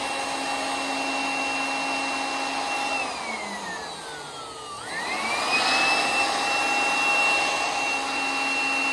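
Handheld electric blower motor running with a steady whine, blowing dust out of an air conditioner's outdoor unit. About three seconds in its whine falls as it slows down, then about five seconds in it spins quickly back up to full speed and runs steady again.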